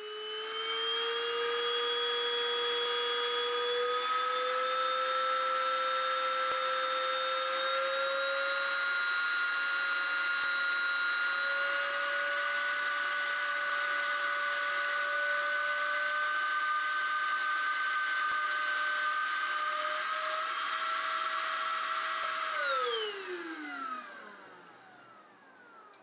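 Hericaine H11 cordless stick vacuum's motor running with a steady whine that steps up in pitch several times as it is switched through its speed settings, then winds down with a falling whine near the end after it is switched off.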